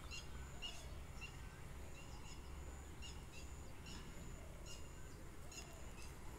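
Birds chirping: many short, high chirps come several times a second, with a thin, steady high note that breaks off and returns. Beneath them runs a faint low rumble.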